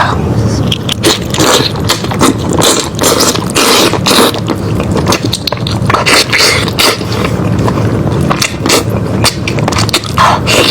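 Close-miked eating of lamb head: wet chewing and crunching, with many irregular crisp clicks and smacks.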